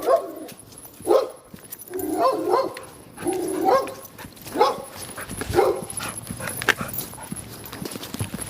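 A dog whining and yipping in short cries, several of them rising in pitch, about one a second for the first six seconds.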